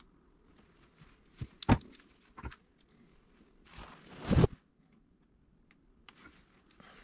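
Handling noise in a small room: a few sharp knocks, then a short scraping rustle a little after halfway through, the loudest sound.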